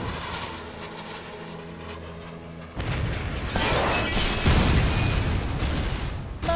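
Animated battle sound effects: a steady low drone, then a little under three seconds in a sudden loud rush of missile rocket motor and explosions, with music underneath.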